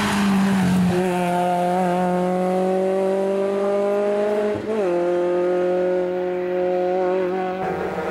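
Small racing hatchback's engine pulling hard in a hillclimb run, its pitch climbing steadily as it revs up through a gear. Just past halfway it shifts up with a quick dip, then holds high revs in the next gear.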